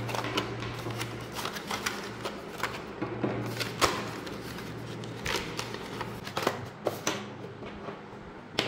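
Unboxing handling noise: a thin black moulded plastic packaging tray crackling as it is flexed, with light clicks and taps from small metal camera-clamp parts being taken out and set down on a wooden table. Irregular short clicks throughout, over a faint steady hum.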